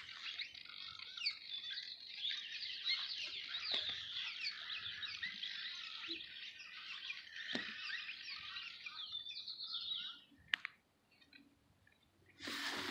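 Many birds chirping and twittering at once, a dense overlapping chorus of short high calls that stops suddenly about ten seconds in. A brief rush of noise follows near the end.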